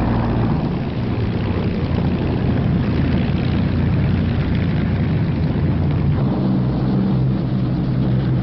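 Piston engines of Hawker Hurricane IID fighters running as the aircraft taxi out, a loud, steady propeller drone whose engine note changes about six seconds in.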